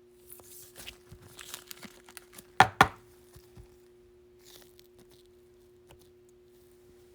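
Rustling and crinkling of plastic card sleeves and a rigid top loader being handled, with two sharp knocks close together about two and a half seconds in.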